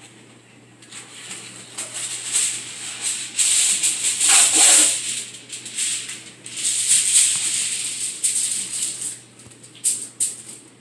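Aluminium foil being handled, crinkling and rustling in two long stretches with sharp crackles in between.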